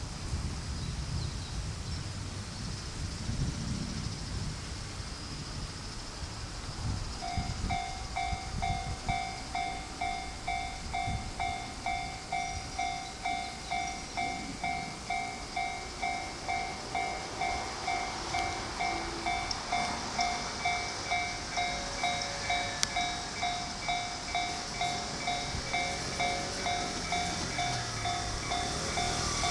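Railway level-crossing warning bell that starts ringing about seven seconds in and keeps going at about two rings a second, with wind noise on the microphone before it. In the second half the noise of an approaching train builds under the bell.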